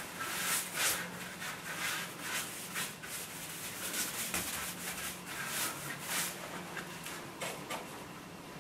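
Paintbrush laying varnish onto bare pine rails: a soft, repeated swish of bristles rubbing along the wood, one or two strokes a second, easing off near the end.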